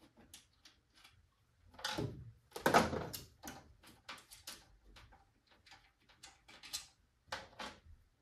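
Irregular metallic clicks and rattles of a 10 mm wrench working the burner door nuts on a gas boiler. The clatter is louder about two to three seconds in and again near the end.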